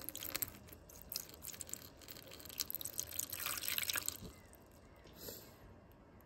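Water poured into a Range Rover's sunroof drain channel, splashing and dripping irregularly, then stopping about four seconds in. It is a test of whether the drain is clear, and the drain is not taking the water away quickly.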